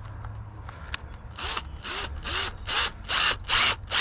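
Cordless drill run in short pulses of the trigger, about two to three a second, starting about a second and a half in, as a small pilot bit starts a hole in a motorcycle handguard.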